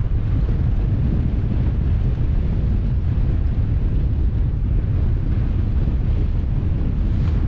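Steady wind buffeting the microphone: a constant low rumble with no distinct events.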